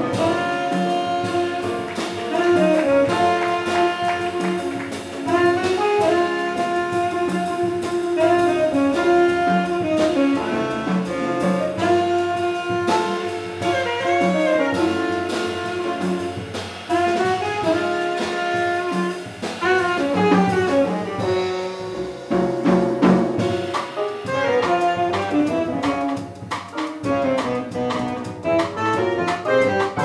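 Jazz quintet playing live: saxophone leading over hollow-body electric guitar, piano, upright bass and drum kit.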